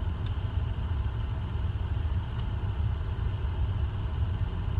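Steady low rumble of a car's engine and road noise heard inside the cabin while driving.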